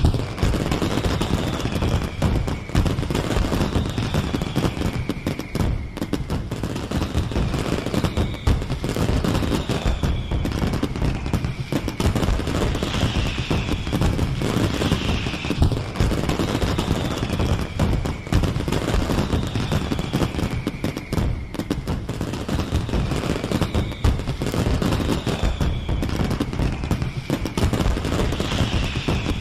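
Fireworks display in full barrage: a dense, unbroken run of rapid bangs and crackling, with a high falling whistle repeating every second or so.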